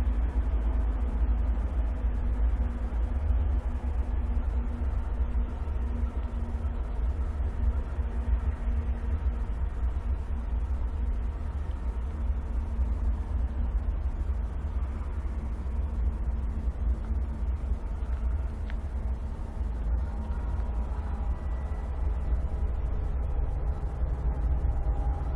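Freight train rolling by with a steady, heavy low rumble. A faint steady tone grows in near the end.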